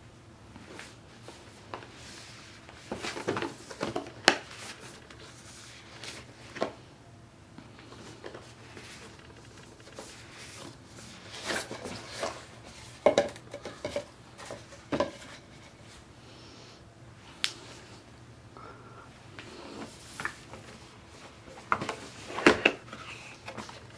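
Cardboard retail box handled with knit-gloved hands: scattered taps, knocks and short scraping rustles as the box is turned over and its inner box is slid out of the outer sleeve.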